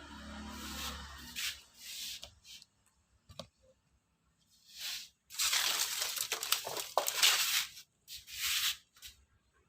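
Irregular bursts of rustling, scraping handling noise, the longest lasting about two and a half seconds in the second half, with short quiet gaps between.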